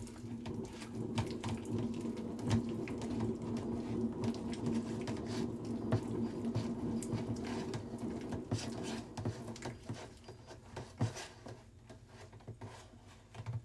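Dough being mixed in a bowl: scattered clicks and taps of a utensil against the bowl, over a steady hum that stops about nine seconds in.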